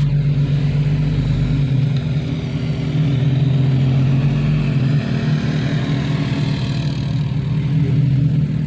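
Cabin noise of a 2001 Jeep Cherokee XJ driving on a dirt road: a steady low engine drone with tyre and road noise.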